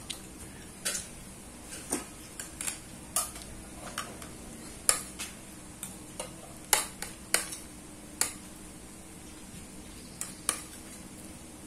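Cutlery clinking and scraping against a plate of fried rice: short, sharp, irregular clicks, several in a quick run and then pauses.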